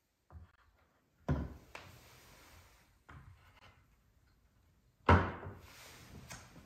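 Loose cut wooden strips knocking and clacking against one another and the wooden floor as they are pushed and shuffled into place by hand: several separate knocks, the loudest about five seconds in.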